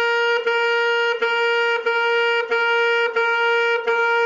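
An alto saxophone plays the same note over and over, about one and a half notes a second, each one started with a rough, noisy attack. This is the unclean tonguing heard from students, sounding as if it has "a piece of junk in the front of every note."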